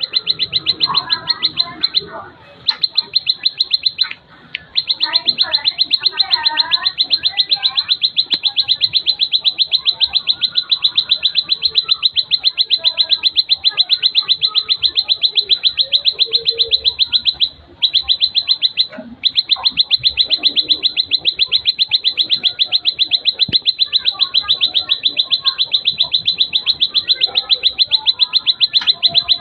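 Plain prinia (prenjak sawah) singing: a long, fast run of the same high note repeated evenly many times a second, breaking off briefly a few times. Fainter chirps from other birds sound beneath it.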